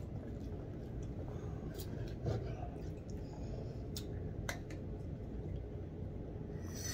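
Quiet eating and food-handling sounds at a table: a soft thump about two seconds in and a few faint clicks, over a steady low background hum.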